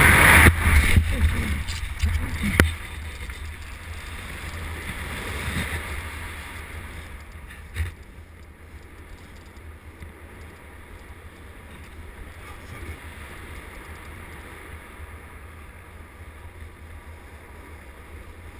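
Wind rushing over the microphone of a jumper's body-mounted camera in BASE-jump freefall, loudest in the first two seconds, then a sharp snap about two and a half seconds in as the parachute opens. After that a quieter steady wind noise under canopy, with a brief thump about eight seconds in.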